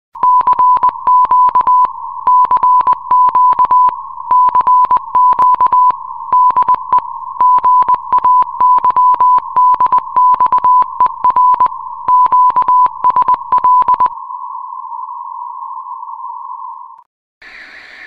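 Morse code beeps: a single steady-pitched tone keyed in short and long beeps, grouped with pauses, for about fourteen seconds. A softer steady tone follows and cuts off about three seconds later. Radio hiss with a whine in it starts just before the end.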